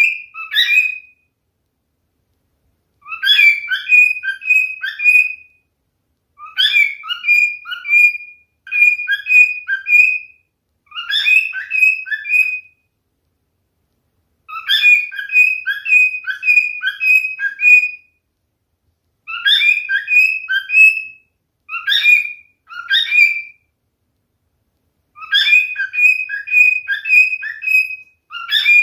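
Male cockatiel singing: repeated phrases of short, clear whistled notes, several a second, in bouts of two to three seconds separated by silent pauses.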